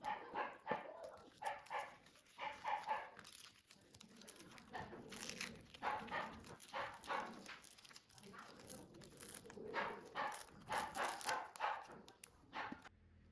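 A dog barking, a long run of short, quick barks in clusters with brief pauses between them, stopping just before the end.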